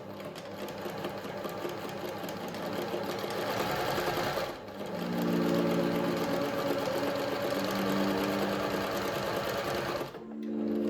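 Pfaff tipmatic 6110 sewing machine running at speed, its needle mechanism stitching in a fast rapid clatter. It pauses briefly about halfway, runs again with a steady motor hum under the stitching, and stops near the end.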